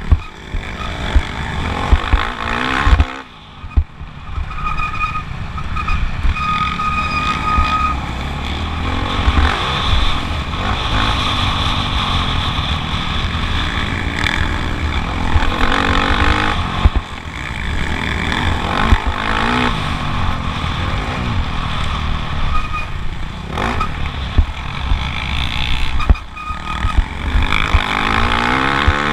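Motocross bike engine at race pace, revving up and down as the throttle is worked around the track. It drops off sharply about three seconds in, then pulls hard again, with shorter lifts later on.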